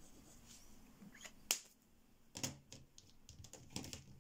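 Quiet, sharp plastic clicks and taps from a gel crayon being capped and handled after a swatch: one crisp click, then a quick run of light clicks in the second half.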